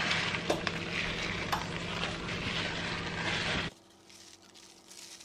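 Hot baking dish of turkey breast in creamy mushroom sauce sizzling steadily, with a few light ticks as grated cheese is sprinkled over it. It cuts off suddenly near the end to faint room tone.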